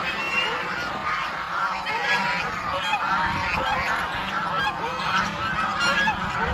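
A flock of domestic geese honking, many short calls overlapping without a break.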